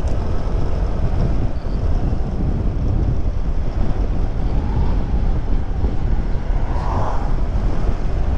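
Steady wind rush over the microphone of a moving Honda Click 125 scooter, mixed with the scooter's single-cylinder engine and road noise while riding. A faint higher tone swells briefly about seven seconds in.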